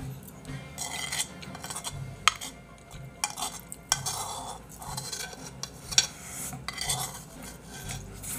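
Metal spoon scraping and clinking against a bowl, scooping and mixing rice, with a few sharp clinks scattered through.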